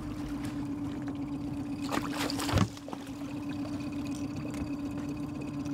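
Boat's outboard kicker motor running steadily at trolling speed, a low even hum over the rush of water. A brief louder noise stands out about two and a half seconds in.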